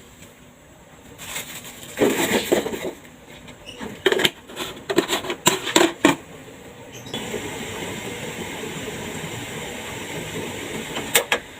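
Pieces of ginger knocking and clattering into a pot, a flurry of irregular knocks. From about seven seconds in a steady rushing noise takes over, with two sharp clicks near the end.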